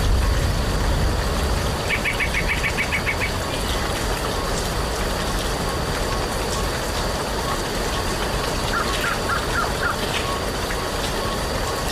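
Two short, rapid runs of songbird chirps, about eight quick high notes some two seconds in and five lower ones about nine seconds in, over a steady low rumble and hiss.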